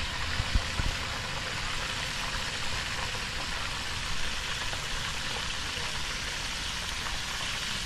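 Battered bluegill and shellcracker pieces frying in a pot of oil over a propane burner: a steady sizzle with the burner's rumble beneath, and a few soft knocks in the first second as pieces go in. The cook judges the grease was not hot enough for this batch.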